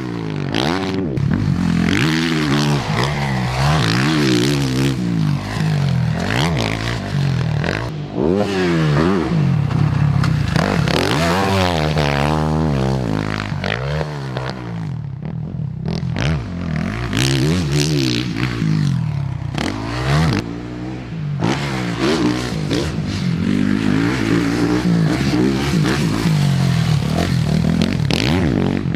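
Motocross bike engine revving hard and repeatedly, its pitch climbing as it accelerates, then dropping as it shifts and backs off for turns, over and over through the lap.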